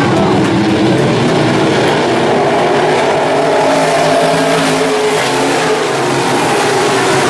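A pack of IMCA modified dirt-track race cars racing together, their V8 engines making a loud, steady drone of several overlapping engine notes that rise and fall as the cars accelerate and lift through the turns.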